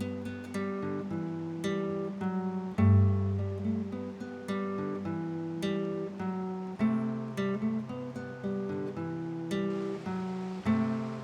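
Background music: acoustic guitar playing a steady run of plucked notes over low bass notes.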